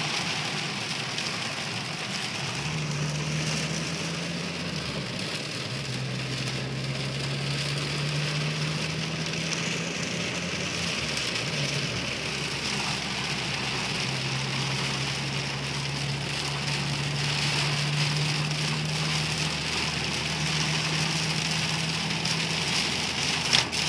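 Heavy rain downpour, a dense steady hiss of rain on surfaces. A low steady hum runs underneath from about three seconds in, with short breaks.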